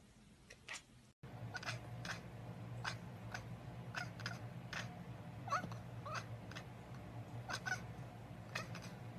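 Kitten mewing: a rapid run of short, high mews at about two a second, some sliding up or down in pitch, over a steady low hum.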